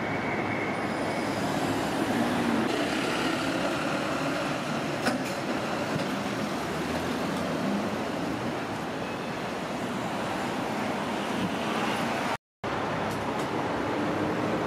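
Steady city street traffic noise as vehicles pass, with one sharp click about five seconds in. Near the end the sound drops out completely for a moment.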